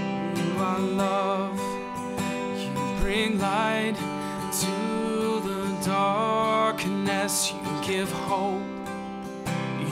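Worship song: strummed acoustic guitar accompanying a singer who holds long, wavering notes.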